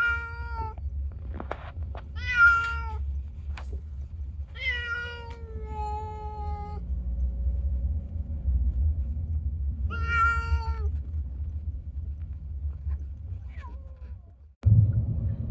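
Domestic cat meowing four times from inside a pet carrier; the third meow, about four and a half seconds in, is drawn out longer than the others. A low steady rumble runs underneath.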